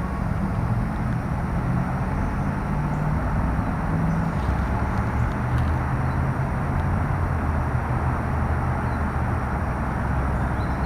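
Steady low rumble with a hiss over it, outdoor background noise without any distinct event.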